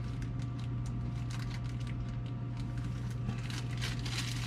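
Plastic zip-top bag crinkling and rustling in the hands as frosting and food colouring are squished together inside it, the crinkling growing louder near the end, over a steady low hum.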